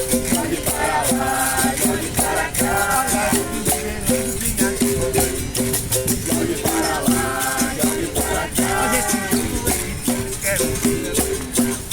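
Capoeira roda music: berimbaus playing a rhythmic toque with shaken caxixi rattles and hand percussion keeping an even beat.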